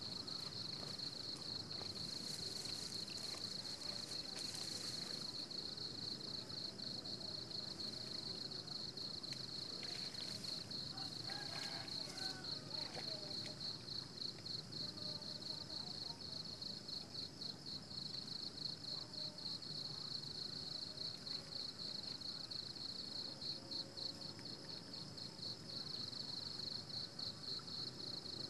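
Insects chirring outdoors in a steady high-pitched trill, which turns into a pulsing trill of about three beats a second in the second half.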